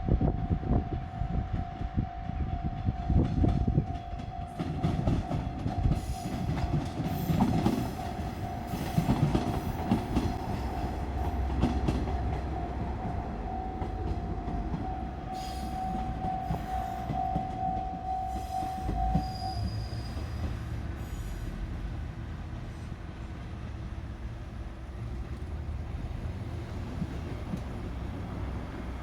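JR Shikoku 1500 series diesel railcars pass over a level crossing, their wheels clacking over the rail joints and their diesel engines running, while the crossing's warning bell rings as a steady tone. The bell stops about two-thirds of the way through, leaving a steady low engine drone.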